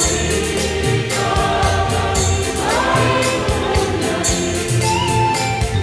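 Mixed choir of men and women singing in harmony over instrumental accompaniment with a steady beat; the voices hold long notes and slide up to a higher note about halfway through.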